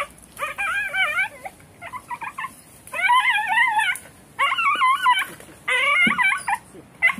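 A puppy crying out in about six bouts of high, wavering whimpering cries, frightened and in pain as it is pulled from under a concrete slab.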